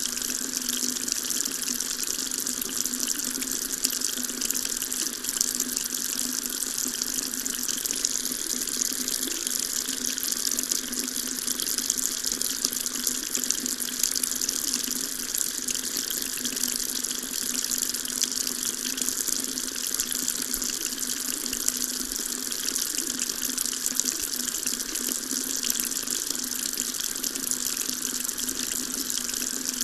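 Water tap running steadily, the stream splashing into a sink as an even, unbroken hiss.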